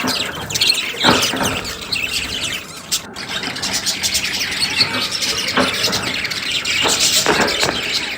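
A flock of budgerigars chirping and chattering continuously. A few louder calls stand out, about a second in and twice more near the end.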